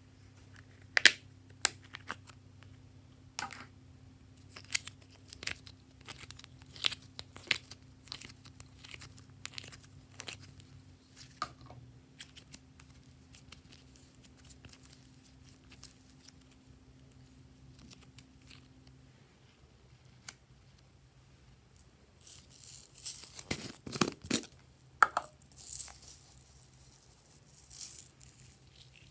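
Sharp clicks and snaps of a multi-compartment plastic case being handled, scattered through the first dozen seconds. A few seconds of crackling and rustling follow about three quarters of the way in, all over a faint low hum.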